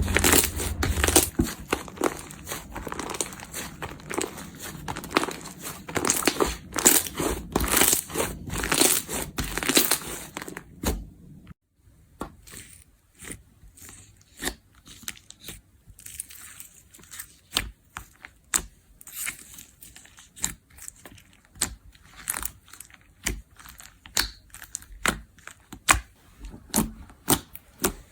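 Slime being squeezed and poked by hand: dense crackly crunching for about the first eleven seconds, then, after a sudden change, sparser sticky clicks and pops.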